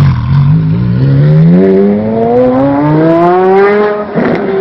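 Loud straight-piped Porsche Carrera GT 5.7-litre V10 accelerating hard, its pitch climbing steadily with a few small steps for about four seconds. About four seconds in there is a short rough burst, then the note eases and slowly drops.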